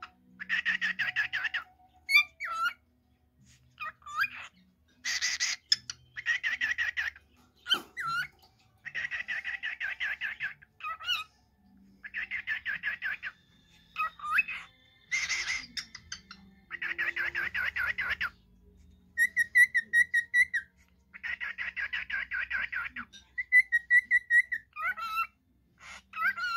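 Male cockatiel singing, calling to its mate: repeated buzzy chattering phrases about a second long, alternating with short sliding whistle notes. Twice, about two-thirds of the way through, it holds a steady pure whistle.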